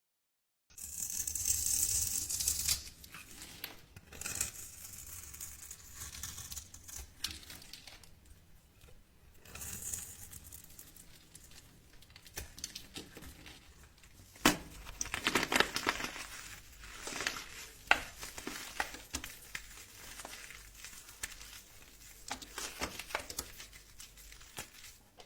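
Dry bar soap being cut and crumbled with a knife: crisp crackling crunches in several bursts, loudest just after the start, with a few sharp snaps in the second half.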